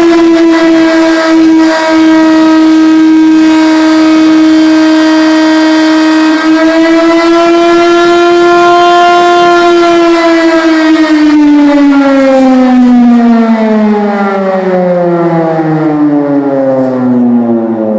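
Restored Ercole Marelli electromechanical air-raid siren wailing loudly at a steady pitch, on its first test run after restoration. About seven seconds in it climbs slightly. From about ten seconds in it winds down in a long falling glide.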